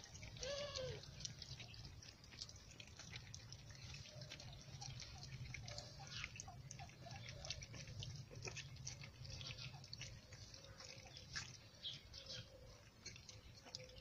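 Puppies eating together from one bowl: scattered quick wet clicks of lapping and chewing. A short pitched animal cry sounds about half a second in.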